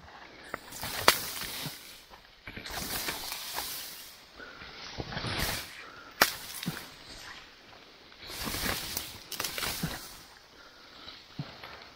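Rustling and swishing of brush and undergrowth in irregular bursts, with sharp snaps about a second in and again about six seconds in.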